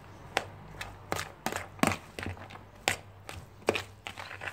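Fork stirring a tub of moist grated carrot and shredded vegetables, clicking and scraping against the plastic tub in an irregular series of sharp ticks, about two to three a second.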